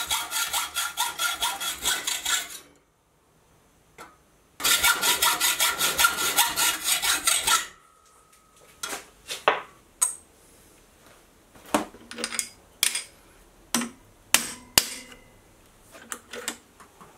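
Hand hacksaw cutting a steel bar held in a bench vise: two spells of quick, even strokes, a few seconds each. After that come a string of short metallic clicks and knocks as small steel pieces are handled.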